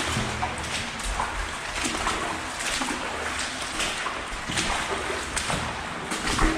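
Water sloshing and splashing in a steady rhythm, about one to two splashes a second, from movement through water in a brick tunnel.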